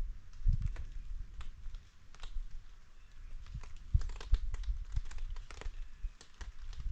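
Scattered raindrops tapping irregularly on a rain tarp overhead, with soft low bumps in between.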